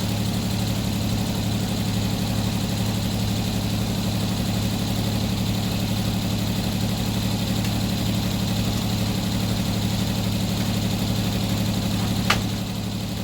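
Sawmill's engine idling steadily with an even, rapid firing pulse. A single sharp click or knock near the end, after which the engine sound drops a little.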